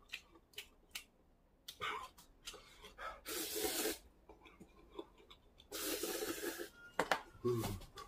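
A person slurping instant noodles from a cup ramen: two long slurps, about three seconds in and again about six seconds in, with small clicks between. Near the end a short low grunt.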